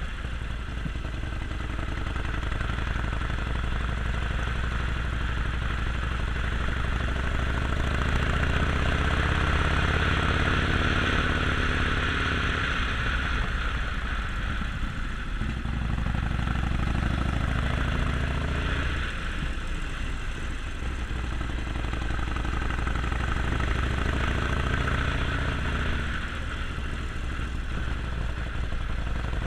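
Harley-Davidson Sportster Forty-Eight's 1200 cc V-twin engine pulling the bike along on the road. Its pitch rises and falls several times as it speeds up and eases off, over a steady rushing noise.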